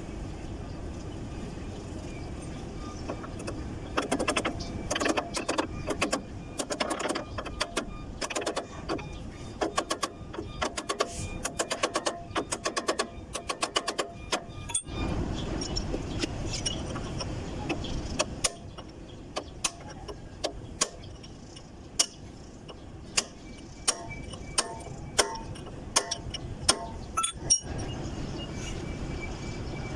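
Metal tools clinking and tapping on forklift wheel-hub parts during a wheel bearing replacement, over a steady low rumble. The clicks come in quick clusters, then later as single sharp taps about a second apart.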